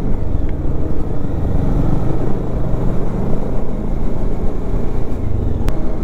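Bajaj Dominar 400's single-cylinder engine running steadily under way, heard from the rider's seat mixed with wind rumble on the microphone. A single sharp click near the end.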